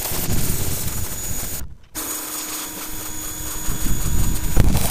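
Ryobi electric pressure washer running and spraying water, a steady machine noise with a hiss of spray. It cuts out abruptly for a moment about two seconds in, where one clip ends and another begins.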